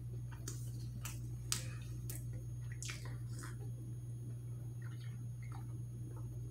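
Close-miked wet mouth sounds: a man chewing a bite of Italian beef sandwich with sharp smacks and clicks through the first half, then quieter sips and swallows from a glass of soda. A steady low hum runs underneath.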